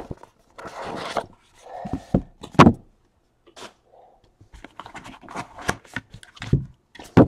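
Cardboard trading-card boxes being handled and opened: scraping and sliding of cardboard, with a few sharp knocks as boxes are set down.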